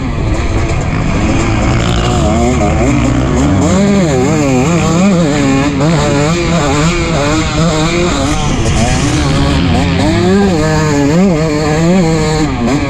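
2023 KTM 250SX single-cylinder two-stroke motocross engine revving hard, its pitch swinging up and down over and over as it runs against the rev limiter.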